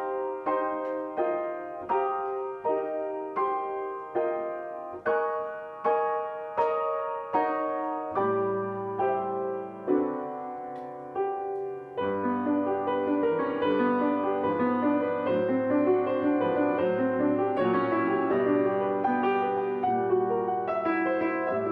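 Piano music: single notes or chords struck one at a time, each ringing and dying away, then from about twelve seconds in a fuller, busier passage with a deeper bass.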